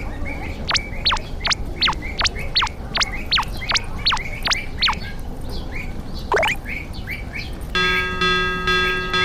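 Bird calls over a steady background noise: a quick run of high whistles that fall in pitch, about two or three a second, then a single rising whistle. Music comes back in near the end.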